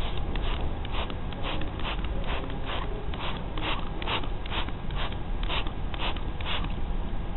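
Hand trigger spray bottle being pumped, a quick run of short hissing squirts at about two a second, over a steady low rumble.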